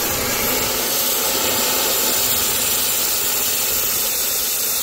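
Swimming pool circulation pump running, a steady rushing hiss of motor and water through the pipework.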